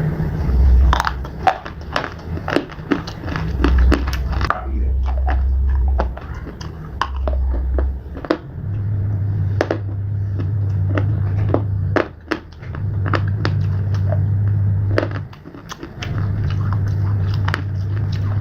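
Pieces of slate being bitten and chewed close to the microphone: many sharp, irregular crunches, some clustered and some spaced apart. A low steady hum comes and goes in long stretches beneath the crunches.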